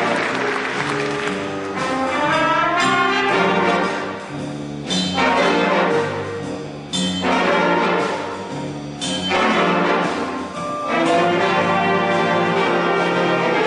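Big band of saxophones, trumpets, trombones and piano playing loud sustained brass chords. In the middle the full band comes in suddenly after short dips, about every two seconds.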